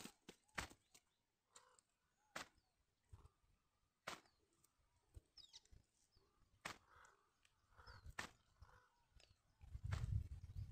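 Near silence broken by scattered sharp clicks and soft rustles of a cast net and fish being handled as a tilapia is worked free of the mesh, with a few faint bird chirps. A low rumble comes in near the end.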